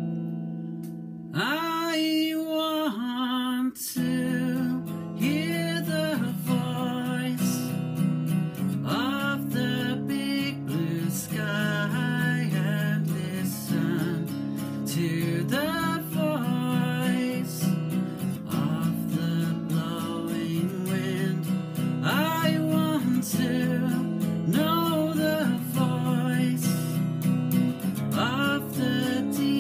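A man singing to his own strummed acoustic guitar; the guitar chords carry on throughout and his voice comes in about a second in.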